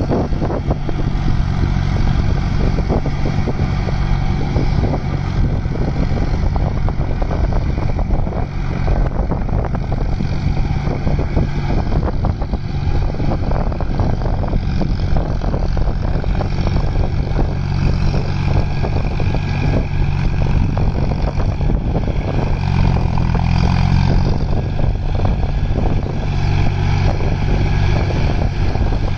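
John Deere 5050D tractor's three-cylinder diesel engine running steadily under load, pulling a rotary tiller through wet paddy mud.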